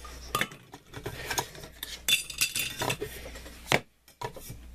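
Stanley stainless steel cook set being handled: the pot and its nested pieces clink and rattle, with a ringing metal clink about two seconds in and a sharp knock near the end.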